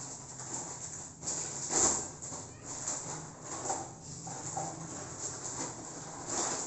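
Thin plastic packaging bags crinkling and rustling by hand as new rubber fork boots are pulled out of them, in irregular bursts, loudest a little under two seconds in.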